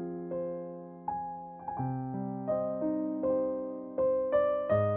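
Slow, gentle piano music: single notes and chords struck about every half second to a second, each ringing and fading away.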